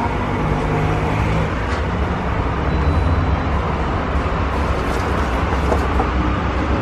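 Steady low rumble of street traffic, with a few light metal clinks from a frying strainer.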